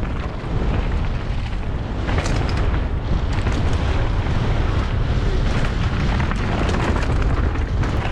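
Wind buffeting a helmet-mounted action camera's microphone as a downhill mountain bike descends at speed, a steady low rumble with scattered clicks and knocks from the bike clattering over rough trail.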